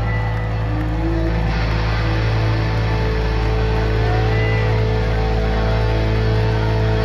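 Electric guitar feedback and amplifier drone left sounding as a live rock song ends: a steady held low tone, with a few brief whistling tones bending in pitch.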